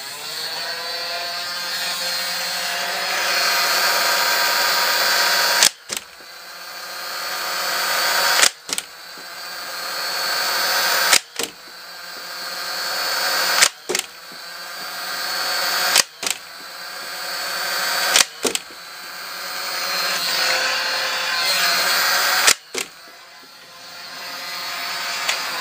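Stock Nerf Barricade's battery-driven flywheel motors whining as they spin up, broken by a sharp snap about every two to three seconds as each dart is fired, about seven shots in all.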